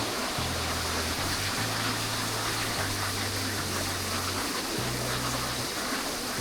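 Waterfall rushing steadily, with the low bass notes of music running underneath it.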